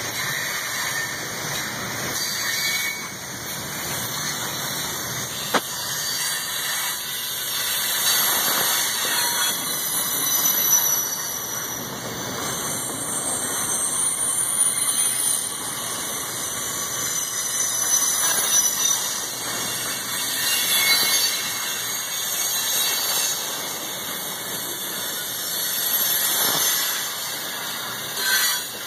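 Freight train cars rolling past close by, with a steady high-pitched squeal from the steel wheels on the rail. The sound swells and fades as the cars go by, and there is one sharp click about five and a half seconds in.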